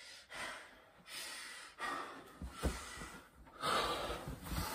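A man breathing heavily, several long noisy breaths in and out, with a short thump about two and a half seconds in.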